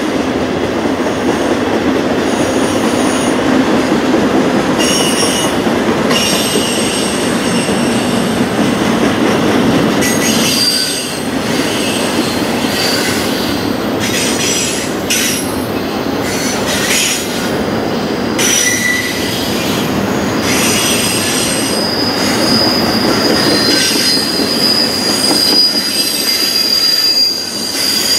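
Double-stack container freight train rolling past on a curve, its wheels rumbling steadily over the rails. High-pitched wheel squeals come and go as the wheel flanges grind through the curve, and about three quarters of the way in one long steady squeal sets in and holds.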